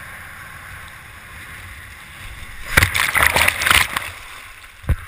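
Water rushing past a fast-sailing Hobie Cat catamaran, then, nearly three seconds in, a loud burst of splashing and churning water lasting about a second as the trapezing sailor plunges into the lake after his trapeze line breaks. A single sharp knock follows about a second later.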